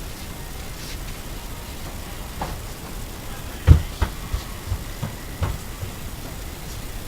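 Blizzard wind making a steady hiss, broken by several short low thumps, the loudest about three and a half seconds in.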